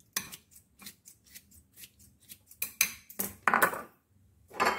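Kitchen scissors snipping kimchi in a ceramic bowl: a quick series of crisp snips, about four a second. Then, past the middle, a few louder clatters as the scissors and bowl are set down on the counter.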